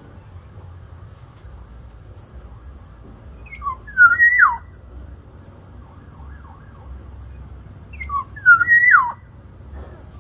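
Black-naped oriole giving its fluty whistled call twice, about four seconds apart: each time a couple of short notes leading into a loud whistle that rises and then swoops down.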